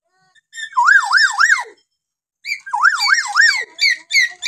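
Hill myna (Kalimantan beo) giving two loud, wavering, siren-like calls, each with three quick up-and-down swoops in pitch. A run of short clipped notes follows near the end.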